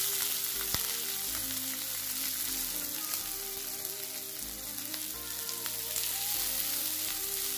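Half-cooked, drained rice sizzling as it is tipped into hot oil with toasted cumin seeds in a kadai and stirred with a wooden spatula: a steady frying hiss. Background music plays underneath.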